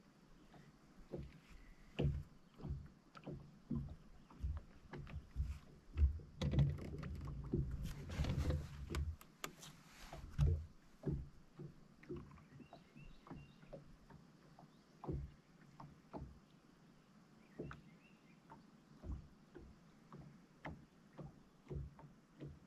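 Small waves lapping and slapping against a bass boat's hull in irregular knocks, about two a second, with a louder, busier stretch about six to ten seconds in.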